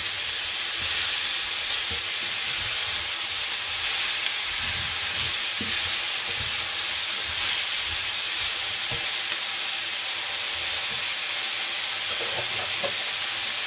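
Chicken, mushrooms and freshly added bell peppers sizzling steadily on high heat in a cast-iron skillet. A wooden spoon stirs and scrapes through them now and then, with a few low knocks in the middle.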